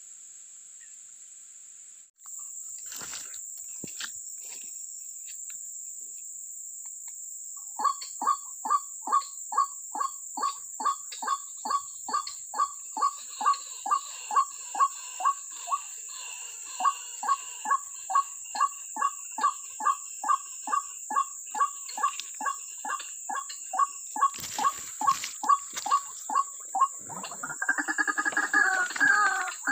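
White-breasted waterhen (ruak-ruak) calling, a long, regular string of short croaking notes about two a second that starts about a quarter of the way in, over a constant high insect drone. Near the end the calling changes to a higher, more complex call.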